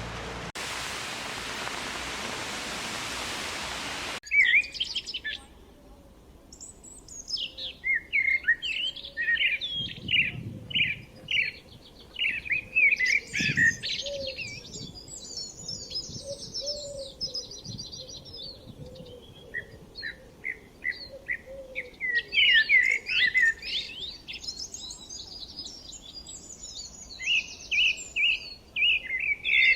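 Steady rain hiss that cuts off abruptly about four seconds in. Songbirds then sing for the rest, with many quick chirps, repeated notes and trills.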